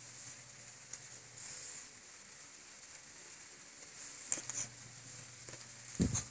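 Handling noise from small plastic toy figures being picked up and moved: a few light clicks and rustles, then a louder knock near the end, over a steady faint hiss.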